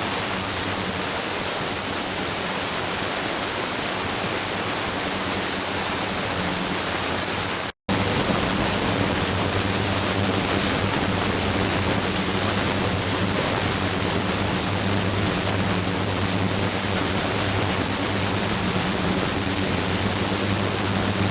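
Ultrasonic tank with running water: a steady rushing hiss with a low hum and a high steady whine. The sound breaks off for an instant about eight seconds in, then goes on.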